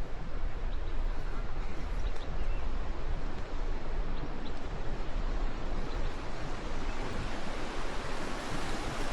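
Wind rushing over the microphone as a steady hiss, with uneven low buffeting underneath.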